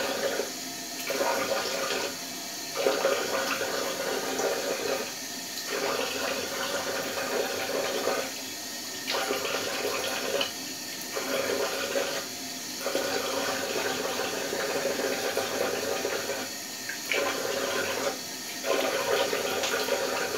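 Cold water running from a bathroom tap into a sink while someone washes their face. The water noise grows louder and drops back every one to three seconds as the hands scoop water and splash it.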